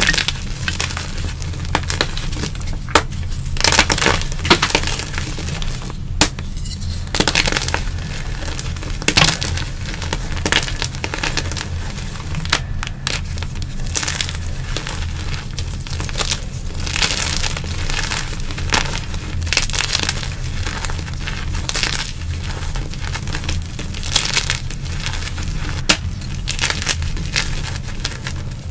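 Blocks of gym chalk being crushed and crumbled in bare hands, giving a run of irregular dry crunches and grainy crumbling as the pieces break apart.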